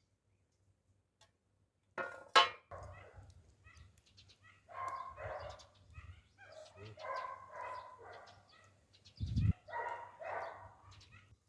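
A dog barking, in pairs of short barks, after a sharp loud bark or knock about two seconds in.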